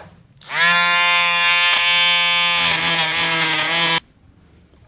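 Handheld rotary tool with a sanding drum spinning up to a high, steady whine and running at speed, grinding down the end of a pin in the snake grabber's handle. It cuts off suddenly near the end.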